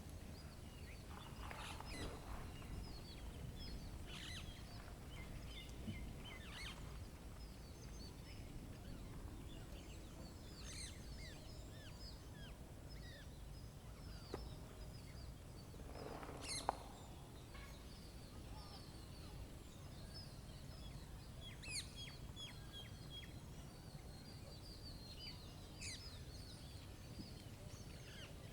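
Small birds chirping at a feeder: many short high chirps and twitters scattered throughout, with a louder, fuller call about sixteen seconds in, over a steady low rumble.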